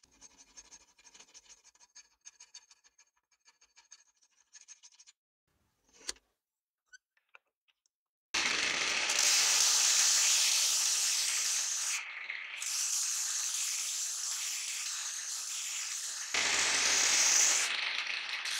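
A hand file rasps in quick, faint strokes across a wooden knife handle clamped in a vise. After a short pause and a click, a motor-driven sanding disc grinds the handle, loud and steady, easing briefly near the middle and getting louder near the end.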